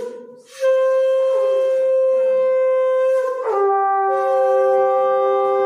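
Conch shells (shankha) blown in long, steady notes. One starts about half a second in; from about three and a half seconds in, two notes at different pitches sound together.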